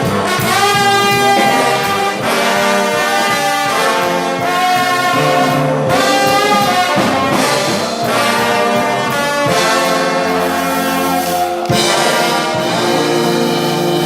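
Live ensemble music led by brass instruments, playing loud sustained chords that change every second or two.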